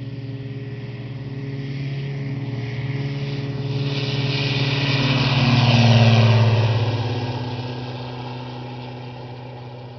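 Single-engine light aircraft with an MWFly four-cylinder boxer engine at full power on its takeoff run. It grows louder as it passes close by about six seconds in, then drops in pitch and fades as it climbs away.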